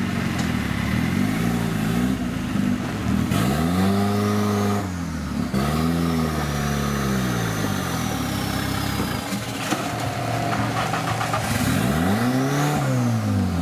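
Off-road 4x4 competition vehicle's engine revving hard and dropping back several times in repeated swells of throttle.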